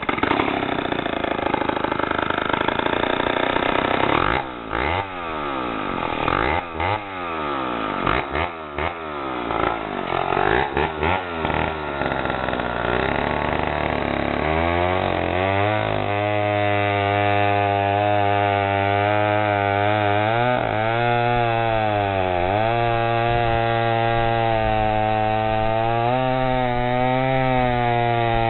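Chainsaw running and cutting: its pitch repeatedly rises and falls through the first half, then it settles into a steady engine note that wavers up and down.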